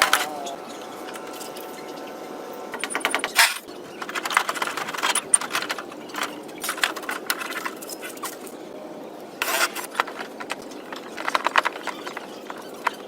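Irregular clicking and metallic clatter, typical of hand tools and small metal parts being handled during workshop work, over a faint steady hum.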